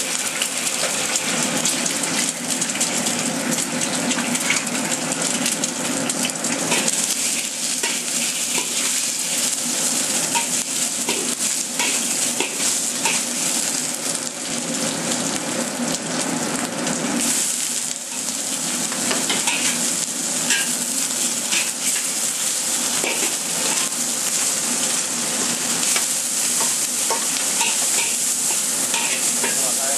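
Egg frying in hot oil in a wok: a steady sizzle, with the spatula scraping and ticking against the wok as the egg is stirred and broken up, the ticks more frequent in the second half.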